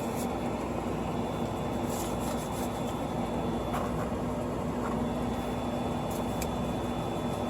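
Steady fan hum with a low held tone and a faint high whine, and a few faint light clicks.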